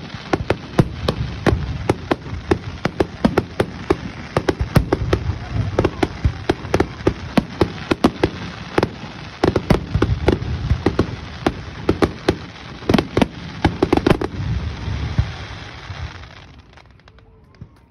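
Fireworks display: a rapid barrage of bangs and crackles from aerial shells bursting, several a second, thinning out and dying away about fifteen seconds in.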